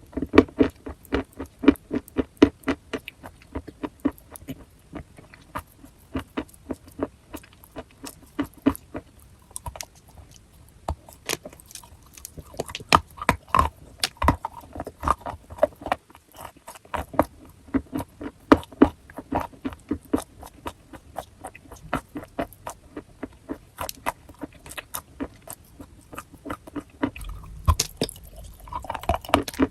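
Close-up crunching of chalk being bitten and chewed: a quick, irregular run of sharp crunches, with a short pause about sixteen seconds in.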